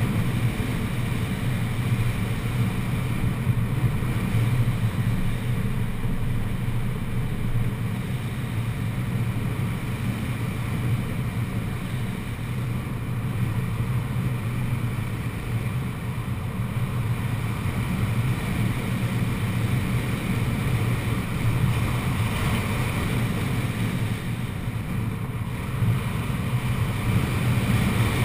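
Steady rush of wind from the airflow over a hang glider's wing and the wing-mounted camera's microphone in gliding flight, with a constant low rumble.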